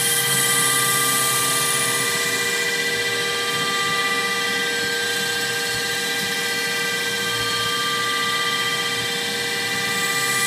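Hitachi Seiki VS-50 CNC vertical machining center face-milling metal: the spindle and cutter run at a steady speed through the cut, giving a steady whine of several held tones over a rough cutting noise.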